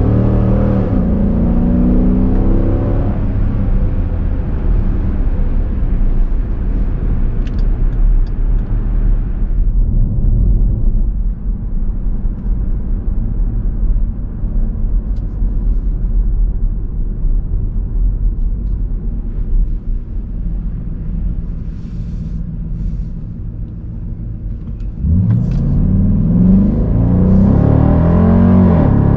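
A 2021 Dodge Durango R/T's 5.7-litre HEMI V8 exhaust under hard acceleration, its note rising in pitch, then settling to a quieter, lower steady drone while cruising. About 25 seconds in it opens up loudly again and climbs in pitch under another hard acceleration.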